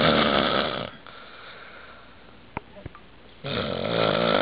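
A man snoring in his sleep, with raspy, rattling breaths. One snore dies away about a second in, and the next starts near the end, with a couple of faint clicks in the quiet between.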